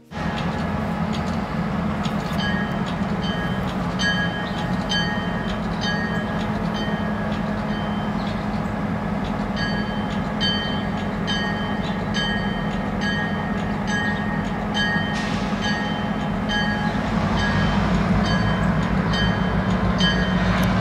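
A steady low droning rumble, with short high chirps repeating about twice a second that pause now and then; it grows a little louder near the end.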